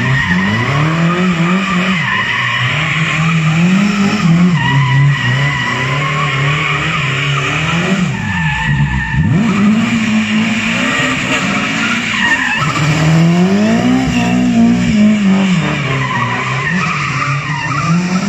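BMW E30 M3 rally car doing donuts: its engine revs rise and fall over and over while the rear tyres squeal and skid on the tarmac. About eight seconds in the revs drop sharply and climb back.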